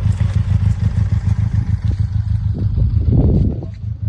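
Motorcycle engine running at a steady low idle, with a brief louder rise about three seconds in before it settles back.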